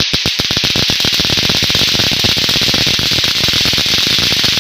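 Loud, harsh crackling hiss like heavy static, starting abruptly and holding steady. It is an amateur recording presented as the mysterious 'strange sound from the sky'.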